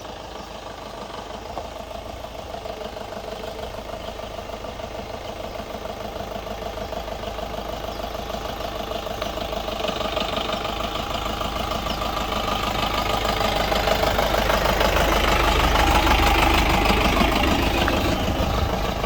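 Jeep engine running with a steady, even beat, growing steadily louder over about fifteen seconds.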